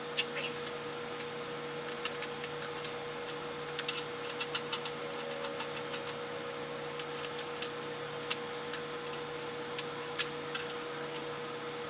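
Irregular sharp clicks and light taps of metal tools and bicycle parts being handled during bike assembly, in scattered clusters, over a steady electrical hum.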